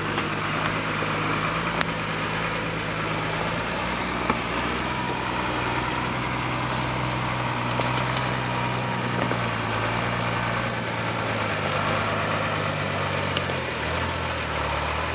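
Mercedes Unimog U1700L truck's diesel engine running steadily at low revs as the truck creeps forward, its note shifting in pitch a few times near the end.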